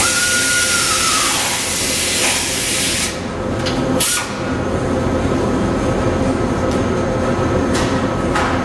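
A burst of compressed-air hiss from a pneumatic tool, lasting about three seconds, with a thin whistle that sinks as the air stops. Behind it is a steady low workshop rumble, and a few sharp clicks follow later on.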